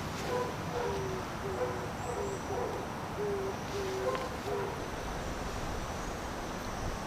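A bird's run of about a dozen short, low hooting notes, alternating between two pitches, stopping a little past halfway, over steady wind noise.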